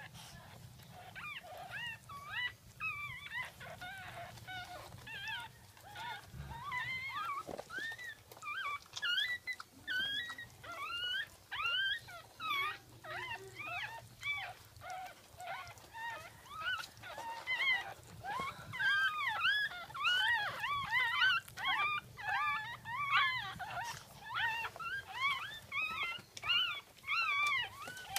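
Newborn Jack Russell puppies crying: a stream of thin, high-pitched squeaks that rise and fall, several overlapping at once, growing busier and louder about two-thirds of the way through.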